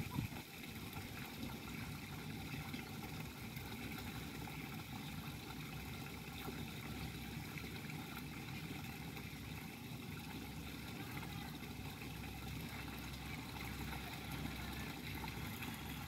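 Water spilling from a narrow stone rill in a short sheet into a shallow pool, a steady trickling splash.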